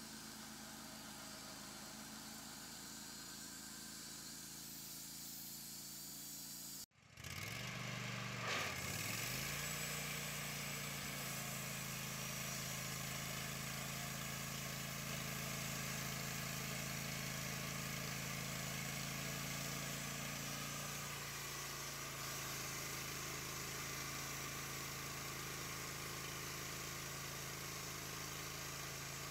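Wood-Mizer LT-15 Wide portable band sawmill running, its gas engine and band blade cutting through a walnut log. The sound breaks off sharply about seven seconds in, then starts again louder. Soon after, the engine pitch dips and rises once, then runs steady.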